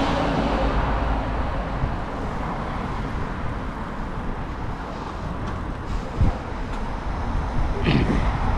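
Steady road-traffic noise from the street alongside, heard from a moving bicycle, with a rumble at the low end. A short knock comes about six seconds in.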